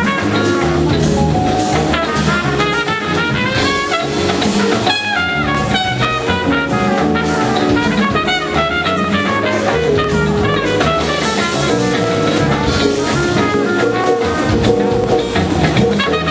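Live jazz band playing: brass horn lines moving up and down over drum kit and percussion, with no break.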